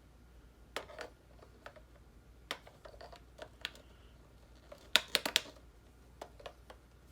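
Light clicks and taps of batteries being pushed into a plastic battery compartment and handled, with a quick run of sharper clicks about five seconds in.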